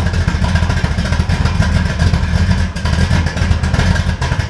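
The 1973 Chevrolet Caprice's engine running loud and steady, with a rapid, choppy exhaust pulse.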